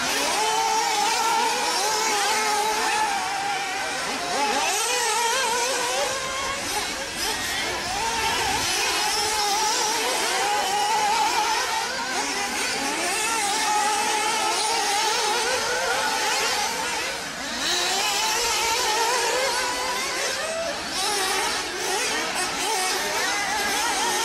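Radio-controlled off-road cars running on a track, their small motors whining up and down in pitch as they accelerate and ease off, with several cars overlapping.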